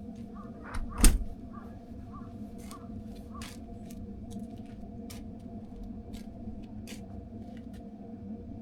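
A single sharp knock about a second in, then scattered light clicks and ticks over a steady low hum.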